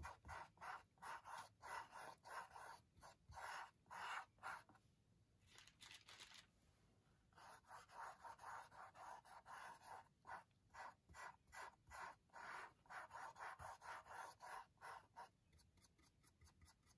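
Faint scrubbing strokes of a large paintbrush on stretched canvas, quick and back-and-forth at about three a second. They pause for a couple of seconds about five seconds in, then go on and fade near the end.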